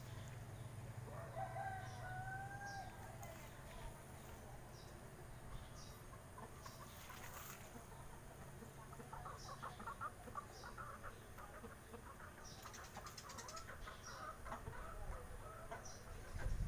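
Distant domestic chickens: a rooster crows once, about a second in, then hens cluck in short repeated calls through the second half.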